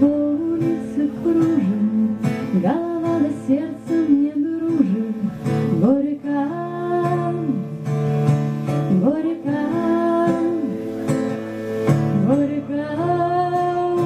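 A woman singing over an acoustic guitar she is strumming herself, her voice gliding between notes and holding a long note near the end.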